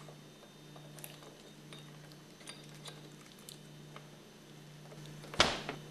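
Small faint clicks and taps of metal pump parts being handled as a cylinder sleeve is worked down over a piston ring, then one sharp knock with a short ring near the end, as the sleeve is tapped into place.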